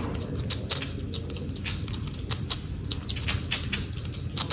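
Young squirrel nibbling and chewing a snack held in its paws: small, irregular crunching clicks, a few each second.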